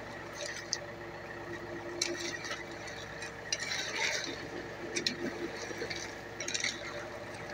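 Irregular scraping and clinking as a hand tool pushes and levels wet concrete and gravel, with a steady hum underneath.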